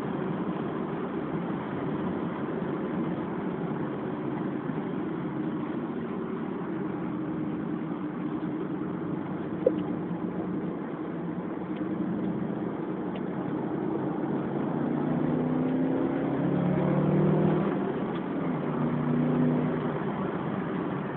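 Subaru Impreza's flat-four engine and road noise heard from inside the cabin as the car laps a circuit at speed, with one sharp knock about ten seconds in. About two-thirds through, the engine revs up with a rising pitch, then again near the end.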